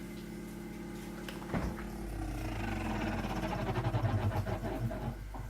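Samsung American-style fridge-freezer humming steadily. About a second and a half in there is a knock, then a louder, rapid rattling buzz for about three seconds: the intermittent fault noise that comes and goes.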